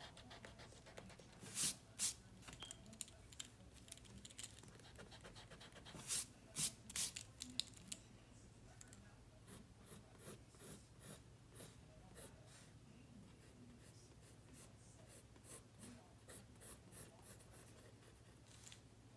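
Mechanical pencil drawing on sketchbook paper: short scratchy strokes, with louder ones about two seconds in and around six to seven seconds in, then lighter, quicker strokes for the rest of the time.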